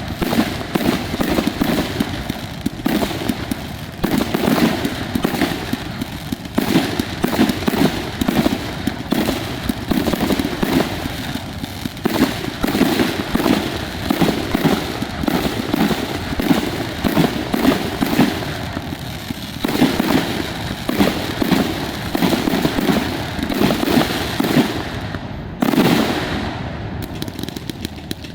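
Fireworks display: shells bursting and crackling in quick succession, a dense continuous barrage of booms and crackle with no pause.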